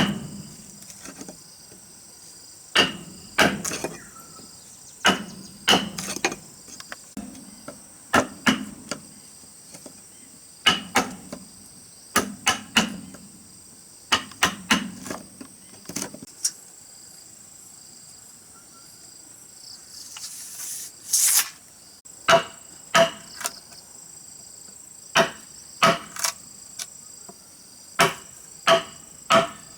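Tool strikes on wood, coming in quick clusters of two to four blows every couple of seconds, with a short rasping scrape about two-thirds of the way through. Insects chirr steadily in the background.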